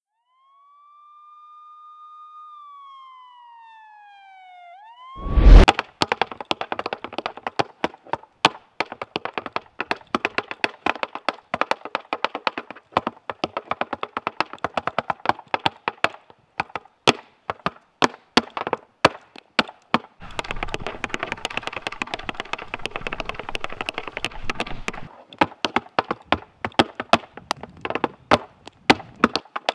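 Tap shoes striking a wooden platform in a fast, dense run of taps, with a stretch of especially rapid, continuous tapping about two-thirds of the way through. It opens with a gliding tone that rises, then falls, followed by one loud thump, the loudest sound, just before the tapping begins.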